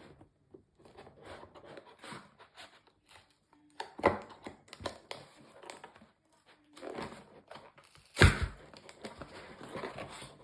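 Toy box packaging being worked at with scissors: rustling, crinkling and tearing, with a louder burst about four seconds in and a sharp knock a little after eight seconds.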